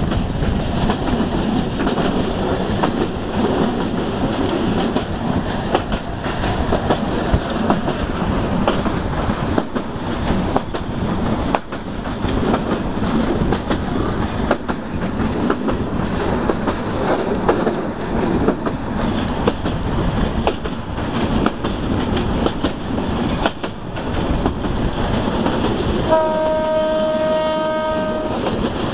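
Parabat Express passenger train running at speed, heard from a carriage window: a steady rumble of wheels on rails with frequent small clicks. Near the end the train's horn sounds one steady blast of about two seconds.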